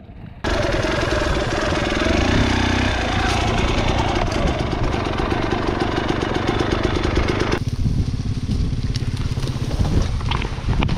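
A vehicle engine running hard under throttle, with a fast, even firing pulse and a shifting pitch. It starts abruptly about half a second in and turns duller at about seven and a half seconds as the throttle eases off.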